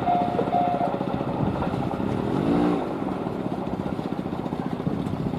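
A Japanese level crossing's electronic warning bell dinging about twice a second, stopping about a second in. Under it runs a continuous rapid rumble from a vehicle close by, with a brief rise and fall in pitch near the middle.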